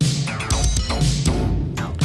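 Electronic music with a drum beat and a steady bass line, starting abruptly after a brief gap: the radio show's jingle coming back from a commercial break.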